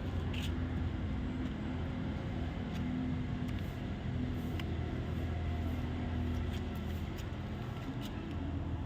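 A steady low mechanical hum with a few faint, light clicks scattered through it.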